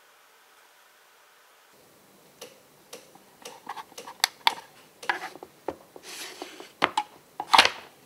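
Hands handling a plastic squid jig under a UV lamp: a string of quick clicks, taps and short rustling scrapes that grows busier, the loudest clatter near the end.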